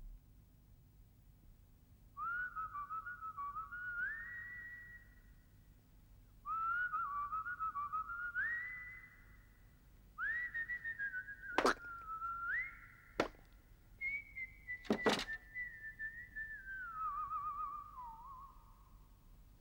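A whistled tune: three short phrases that each climb in steps, then a longer phrase that slides down with a warble near the end. Three sharp knocks land in the second half.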